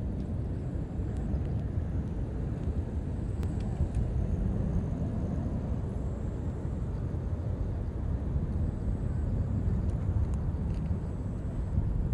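A steady low rumble of outdoor background noise, uneven and gusty in texture, with a faint thin high whine that comes and goes.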